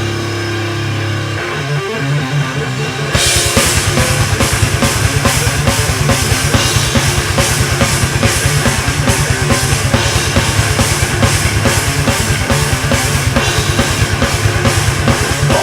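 Live rock band playing an instrumental passage. Held guitar and bass notes ring for about three seconds, then the drums come in with fast, dense beats under the full band.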